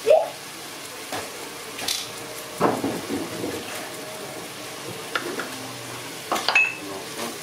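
Meat, chopped herbs and spices frying in oil in a stainless steel pot: a steady low sizzle, with a few light knocks and clicks.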